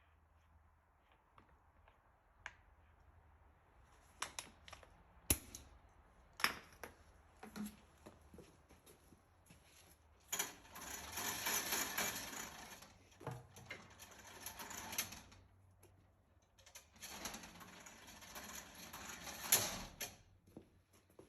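Metal parts of a drill chuck being handled: a few sharp knocks, then two stretches of rapid clicking and rattling, about five and three seconds long.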